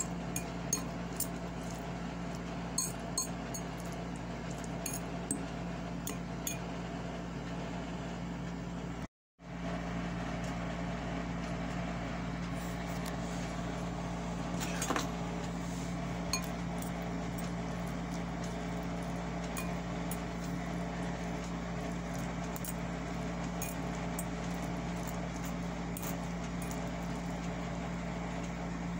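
Metal fork clinking and scraping against a glass bowl while tossing noodles: light, irregular clinks, most frequent in the first several seconds and sparser later, over a steady background hum. The sound drops out completely for a moment about nine seconds in.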